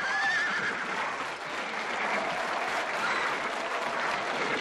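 Dense crowd clapping and cheering around a rearing horse, with a brief high cry near the start.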